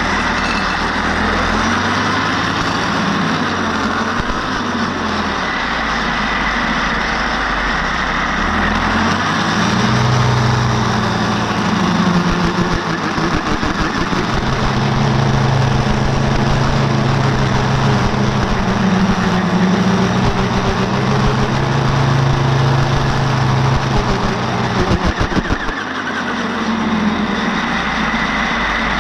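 An engine running steadily, its note drifting up and down and a little louder through the middle, with a constant hiss over it.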